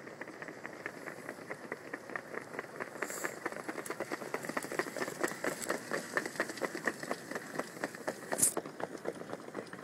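Standardbred trotters pulling sulkies at speed on a sloppy wet dirt track: a fast jumble of hoofbeats and splashing mud that grows louder past the middle. A brief sharp high snap near the end is the loudest sound.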